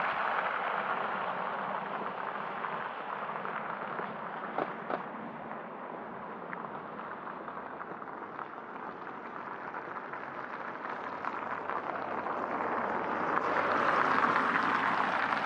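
Car tyres hissing on a wet asphalt road: a passing car's noise fades away, and near the end another car drives close past and the tyre noise swells to its loudest.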